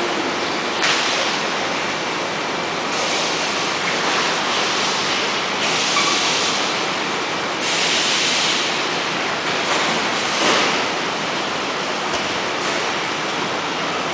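Steady machinery noise of an SBS bitumen membrane production line running, with stretches of louder hiss coming and going every second or two.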